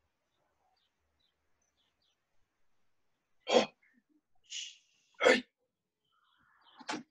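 A person breathing out sharply three times, each breath short and loud, with a fainter hiss between the first two; the breaths fall in the second half, after a stretch of near silence. They keep time with the repetitions of a wooden-sword cutting drill.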